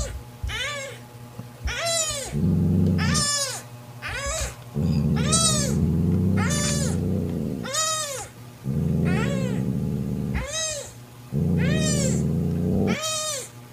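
Newborn kitten mewing over and over, high-pitched cries about one a second, each rising then falling in pitch. A lower steady sound comes and goes underneath.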